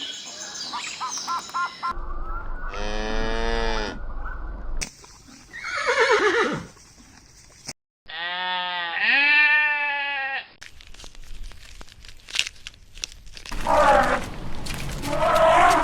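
Several farm-animal calls in a row, each from a separate recording, with abrupt cuts between them. The calls are drawn out and each lasts a second or two, and one slides steeply down in pitch.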